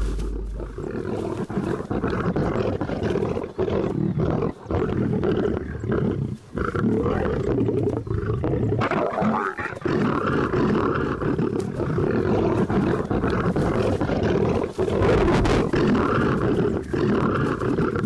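Male lions roaring almost without pause as they fight, the pride's male beating off nomadic males trying to take over the pride. The sound drops away for a moment a few times.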